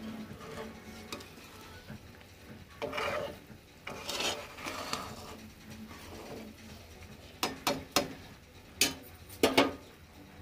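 Steel spoon stirring a thick simmering curry in a kadai, scraping along the pan, then several sharp metal clinks of the spoon against the pan near the end.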